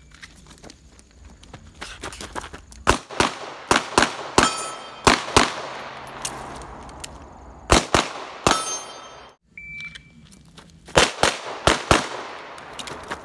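Pistol shots fired in quick strings, a few rounds a fraction of a second apart with short pauses between strings. The shooting breaks off abruptly about nine and a half seconds in, then a fast string of six or seven shots follows near the end.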